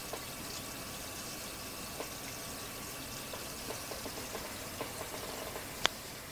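Water in a red-eared slider turtle tank: a steady hiss of moving water with small clicks about once a second, and one sharper click near the end.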